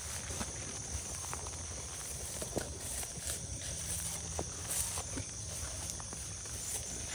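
Footsteps and rustling through grass and leaves, with scattered small snaps, over a steady high chirring of night insects.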